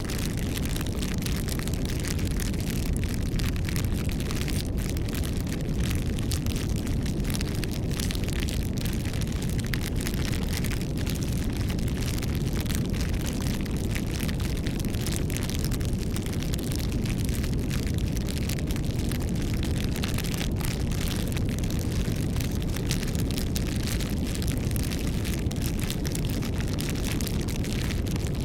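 Campfire burning: a steady low rumble of the flames with many small crackles and pops.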